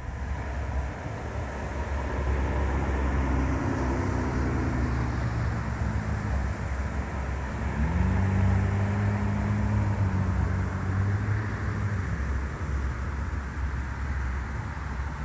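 An engine running over outdoor background noise. It revs up sharply about halfway through and holds the higher pitch for a few seconds before easing off.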